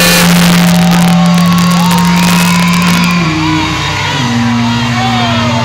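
Live pop music from a concert PA, loud and crowded on a phone's microphone, with a held bass note that shifts about three seconds in, and a crowd shouting and singing along.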